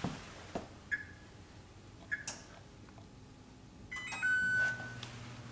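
Electronic beeps from a wall oven's touch control panel as it is set to preheat to 350 degrees: two short beeps about a second apart, then a longer, steady beep a little after four seconds in.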